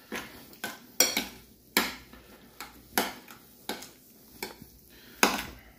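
A metal spoon clinking and scraping against a ceramic bowl as it mixes rice with fried egg, soy sauce and sesame oil. There are about a dozen irregular clinks, roughly one every half second.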